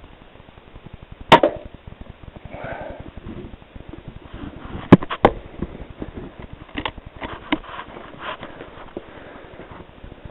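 A single sharp rifle shot about a second in. Several sharp clicks and knocks follow from about five seconds on, the first two the loudest.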